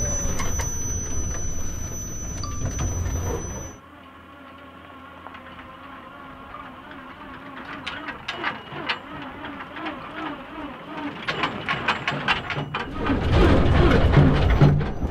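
Electric-converted military Humvee driving off-road in four-wheel-drive low: the electric motor and drivetrain whine over the rumble of tyres on dirt. The sound drops sharply about four seconds in, with a fainter wavering whine and scattered crackles, and comes back loud near the end.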